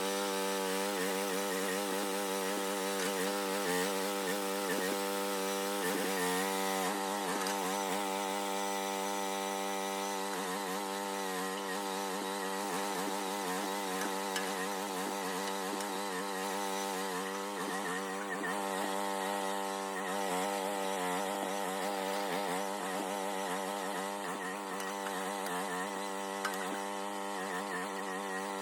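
Small mini excavator engine running steadily at high speed, its pitch wavering slightly as the hydraulics are worked while the grading bucket pushes and levels dirt.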